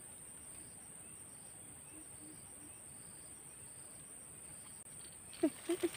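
Steady high-pitched insect buzz, like crickets, over a quiet background. About five seconds in, a quick run of sharp clicks and taps starts.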